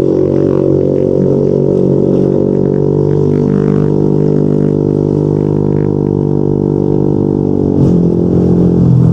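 Yamaha NMAX 155 scooter's single-cylinder engine through a Yoshimura RS2 aftermarket exhaust, held at a steady cruising throttle with an even droning note. Near the end the throttle closes and the note drops.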